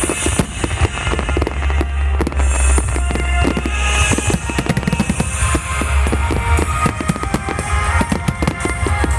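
Fireworks going off in quick succession, many sharp bangs and crackles over a deep rumble, with music playing along.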